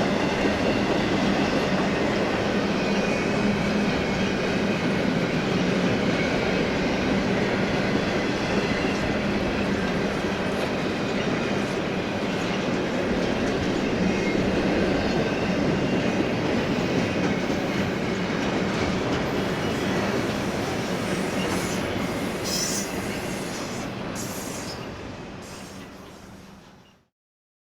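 A BNSF freight train rolling past on the rails: a steady rumble and clatter of wheels over the track with a low hum underneath. The sound fades out near the end and then stops abruptly.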